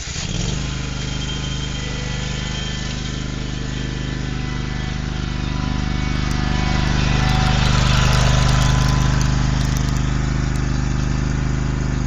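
An engine running steadily at constant speed, growing somewhat louder about eight seconds in.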